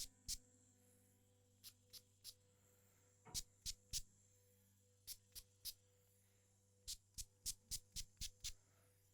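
Water droplets dripping: about seventeen short, sharp drips, several in quick runs of three, over faint steady background tones.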